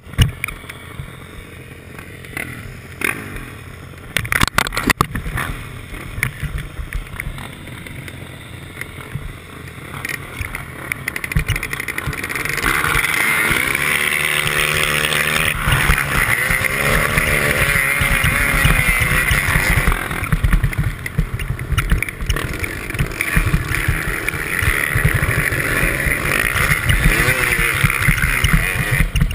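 Motocross bikes running at the start, then accelerating hard about twelve seconds in, their engines revving up and down through the gears with wind rush, heard from a skier towed on a rope close behind one of the bikes.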